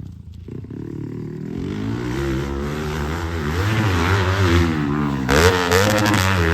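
Yamaha WR dirt bike engine being revved, its pitch swinging up and down repeatedly and building in loudness, loudest about five seconds in.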